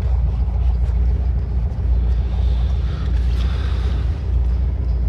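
Volkswagen Fusca's air-cooled flat-four engine and road noise heard from inside the car while driving: a low, steady drone.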